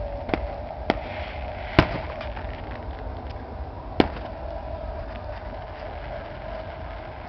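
Fireworks display bursting: four sharp bangs in the first four seconds, the loudest a little under two seconds in, with faint crackling between, over a steady background din.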